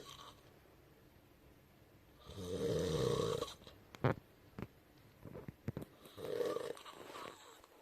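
A person snoring: one long, loud snore about two seconds in and a weaker one near the end. Between them come a few short, sharp clicks.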